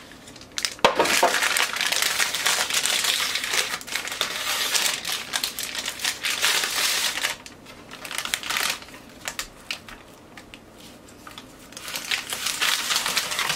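Paper wrapping of a store-bought puff pastry package crinkling and rustling as it is opened and the pastry is pulled out. The rustling is loud from about a second in to about seven seconds, drops to a few short rustles, and picks up again near the end.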